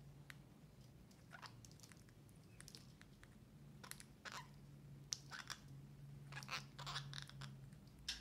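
Parakeets pecking and chewing at bread, fruit and seed: faint scattered crunches and beak clicks, busier in the second half, over a faint steady low hum.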